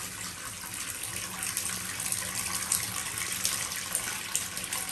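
Water running steadily from a bath mixer tap into a bathtub as it fills.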